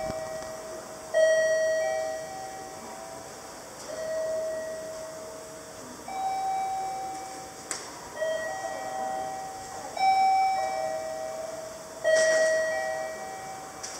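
Electronic station-platform chime sounding a two-note ding-dong over and over, one strike every one to two seconds, each note fading away. A single faint click comes just before the middle.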